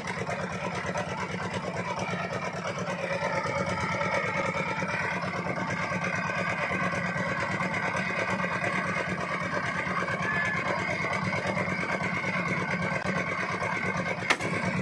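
A wooden boat's engine runs steadily, with a fast even beat. Near the end there is a sharp crack.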